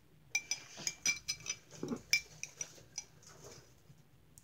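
Spoon clinking against a drinking glass of water while slime activator is stirred in: a quick run of light, ringing clinks in the first two seconds, then a few scattered ones.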